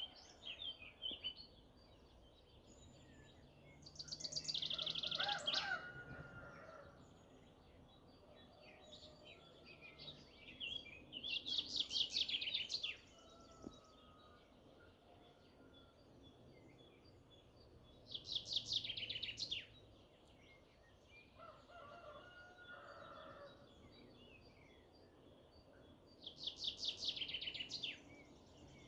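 Forest songbirds singing. One bird repeats a loud, fast trill of rapid notes that falls in pitch and lasts about two seconds. It sings four times, roughly every seven seconds, over softer scattered chirps of other birds.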